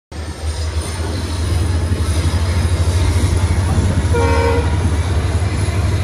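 Steady low rumble of a moving train heard from its doorway, with one short train horn toot about four seconds in.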